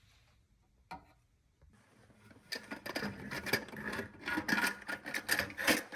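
Toilet fill valve parts being handled. There is a single click about a second in, then from about two and a half seconds a rapid, irregular run of clicking and scraping.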